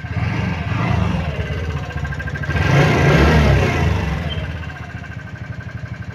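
TVS Ntorq 125 BS6 scooter's single-cylinder engine running with a pulsing beat, revved up briefly about halfway through and then easing back toward idle; this is the engine noise the video sets out to fix.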